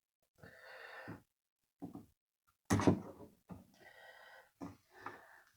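A man breathing hard in short breathy puffs while straining to work a small circlip into a piston's wrist-pin groove. There is a sharper knock about three seconds in.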